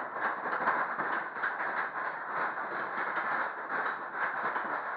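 Ghost train ride car rattling and clattering along its track, with a continuous run of small clicks and knocks.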